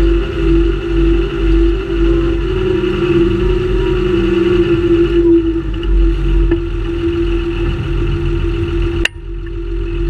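John Deere 6930 Premium tractor's six-cylinder diesel engine running steadily, heard close up from a camera mounted on the tractor: a constant mid-pitched drone over an uneven low throb. A sharp click comes about nine seconds in, after which the sound briefly drops and then recovers.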